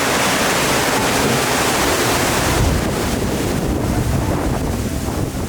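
Rushing water around a Pirates of the Caribbean ride boat, with wind buffeting the microphone. About two and a half seconds in the hiss eases and a low rumble takes over.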